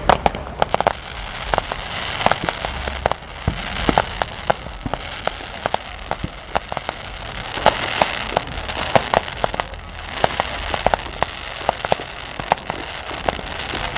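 Fireworks display: many sharp, irregular pops and bangs over a steady crackling hiss from low-bursting effects.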